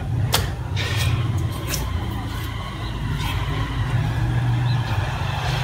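A steady low engine drone, with a few sharp taps in the first two seconds as hands are set down on the tiled floor.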